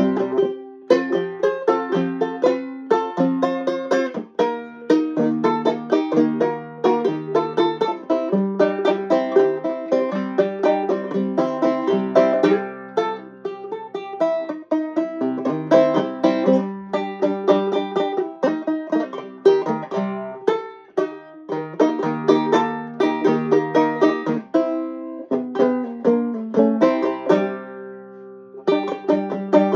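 Banjo picked in a steady run of quick plucked notes and chords, thinning to sparser notes left ringing near the end.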